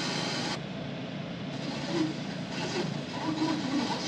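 Car radio in the head unit changing stations: a hiss of static for about half a second, then muffled broadcast sound from the stereo speakers.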